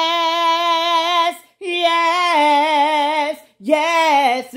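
A woman singing a gospel song unaccompanied, holding long notes with a wide vibrato: three sustained notes with short breaths between them, the last one scooping up from below.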